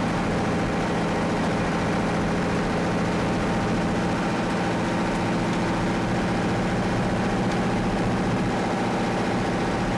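A vehicle's engine running steadily while driving along a highway, heard from inside the cab, with a constant hum and road noise.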